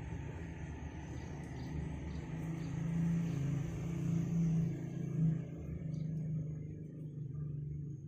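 Low, steady rumble of a motor vehicle passing, its higher noise fading away in the last couple of seconds.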